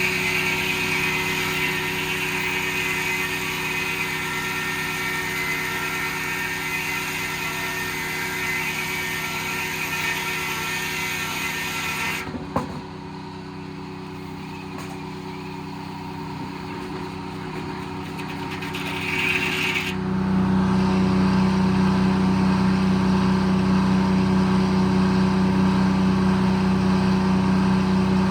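Circle sawmill driven by a Detroit diesel engine running steadily. For about the first twelve seconds a harsher noise of the blade cutting through the log rides over the engine. It stops suddenly with a knock. About twenty seconds in, the engine grows louder and holds there.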